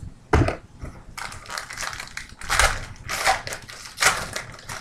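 Foil trading-card pack wrappers crinkling and tearing as packs are ripped open by hand, in about five short bursts.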